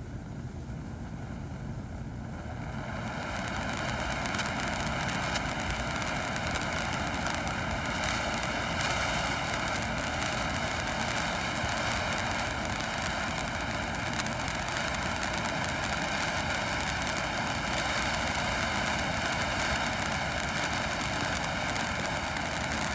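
Texas Chainsaw novelty ground firework spraying sparks: a steady hiss with a buzzing drone, growing louder about three seconds in.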